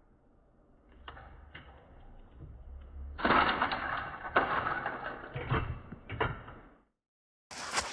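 A 60-inch industrial ceiling fan crashing down, heard in slowed-down slow-motion audio. A low rumble builds, then about three seconds in comes a loud, muffled clattering crash with several sharp knocks. It cuts off suddenly, and near the end a sharper clattering sound begins.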